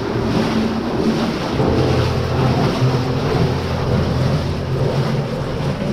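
Wading through water in a flooded mine tunnel: continuous splashing and sloshing of boots moving through the water.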